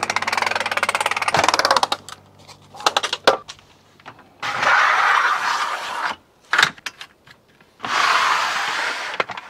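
A manual RV awning being pulled out: rapid, even clicking from the roller mechanism as the fabric unrolls. Then come scattered knocks and two stretches of scraping as the aluminium awning arms are released and raised.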